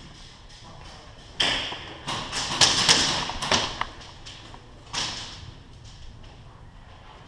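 Airsoft guns firing: a scattered string of sharp snaps and knocks, bunched together about two to four seconds in, with another single one about five seconds in.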